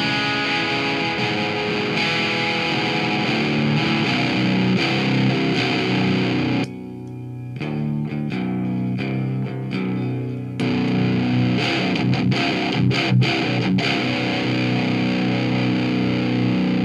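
Electric guitar played through an Orange Micro Dark amp on its clean setting into a Marshall 4x12 cabinet, driven by a single-transistor 2N5089 preamp boost that clips the signal a bit. For about four seconds midway it drops quieter and cleaner, then comes back loud, as the boost is switched off and on again.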